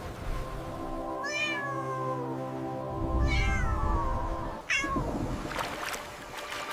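A cat meowing three times, each call falling in pitch, the last one short, over a soft held music chord.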